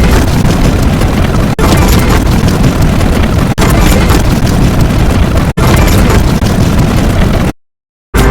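A loud, dense, rumbling sound effect like a sustained explosion, heaviest in the lows, repeating in segments about two seconds long with a brief break between each. It cuts off abruptly to silence near the end.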